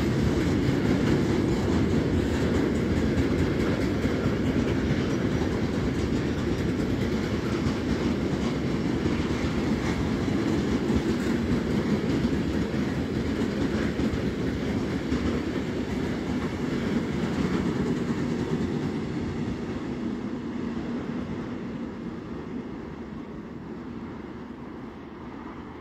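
Freight train wagons rolling past on the rails, a steady rumble of wheels on track that fades away gradually over the last several seconds.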